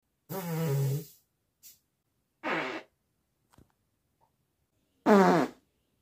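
Three farts with a buzzing pitch: one of nearly a second, a shorter one about two and a half seconds in, and the loudest, a brief one falling in pitch about five seconds in.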